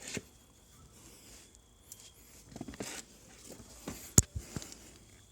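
A few scattered clicks and knocks, the loudest a single sharp knock about four seconds in; no engine is running.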